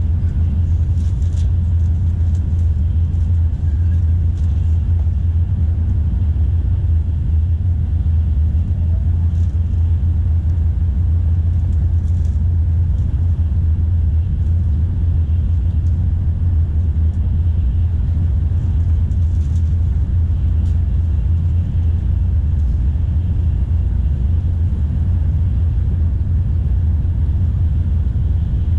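Steady low rumble of a Tokaido Shinkansen bullet train running at speed, heard from inside the passenger car.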